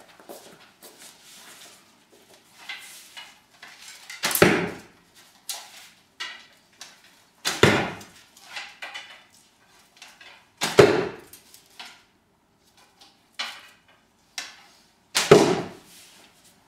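Homemade bow shot four times, a few seconds apart, each release a sharp loud crack of the string with a short ringing tail. Quieter clicks and rustles of the bow and arrows being handled fall between the shots.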